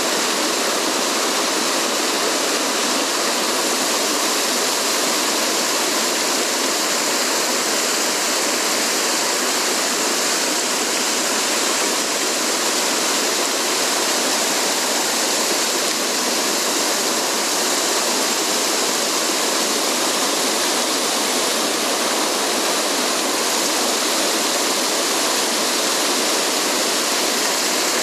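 A mountain stream rushing over rocks: a steady, unbroken sound of running water.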